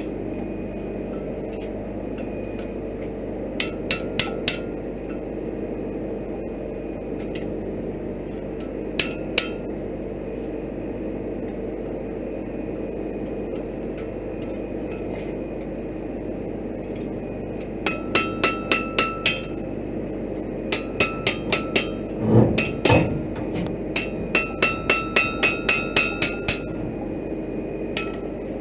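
Blacksmith's hammer striking a bar held in tongs on an anvil, each blow ringing off the anvil. A few scattered strikes come first, then several quick runs of about eight blows in the second half, with one heavier, duller thump among them. A steady hum sits under the strikes.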